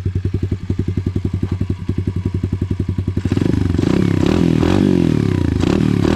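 KAYO TD125 pit bike's 125cc single-cylinder four-stroke engine idling with an even, lumpy beat. From about three seconds in it is revved in several throttle blips, rising and falling in pitch and getting louder.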